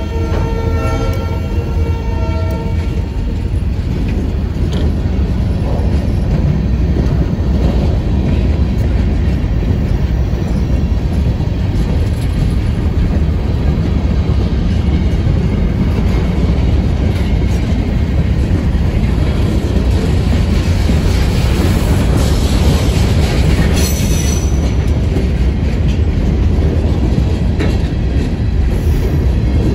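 Freight train of covered hopper cars rolling past close by: a steady low rumble with wheel clatter on the rails, and a brief high wheel squeal about three quarters of the way through. A ringing pitched tone fades out in the first few seconds.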